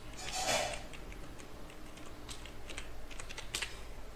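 Computer keyboard typing: a few scattered keystrokes, most of them between about two and four seconds in, over a steady low electrical hum. A brief rush of noise about half a second in is the loudest sound.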